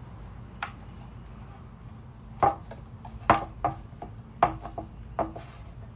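White PVC hydroponic grow tubes and their plastic connector fittings clacking and knocking as they are pushed together by hand. There are about six sharp, irregular knocks.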